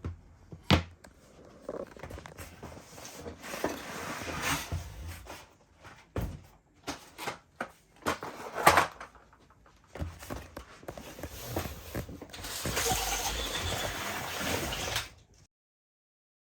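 Flat-pack furniture parts being handled during assembly: scattered knocks and clatter with rustling between them, then a few seconds of steady rustling that cuts off suddenly near the end.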